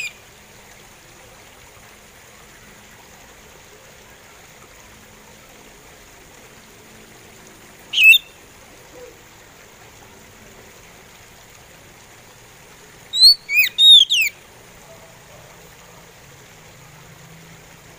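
Oriental magpie robin singing a slow song: one short whistled phrase about eight seconds in, then a run of about four sweeping whistles a few seconds later, with a faint steady hiss between phrases.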